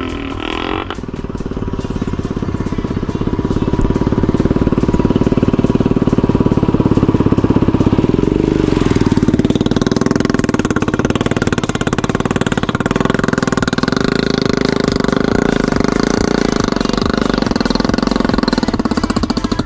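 Royal Enfield Bullet's single-cylinder engine running, its exhaust pushed through a silencer fitted with a home-made horn attachment that makes it louder. A steady rapid thumping that grows louder over the first several seconds, with a change in the engine note about eight seconds in.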